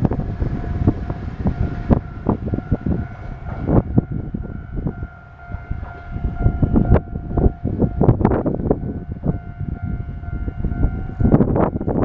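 Railway level crossing alarm ringing with a steady tone, cutting off about eleven seconds in as the crossing clears behind the passed train. Gusts of wind hit the microphone throughout and are the loudest sound.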